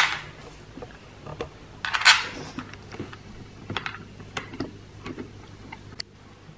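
Scattered light clicks, taps and clinks of hands working on a motorcycle's tail section: handling the plastic taillight assembly and small metal bolts. There is a louder brief rustling scrape about two seconds in.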